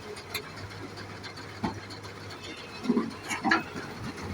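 Excavator working at a distance while it climbs onto a truck: a low steady engine hum with scattered metal clanks and knocks, a few louder ones about three seconds in.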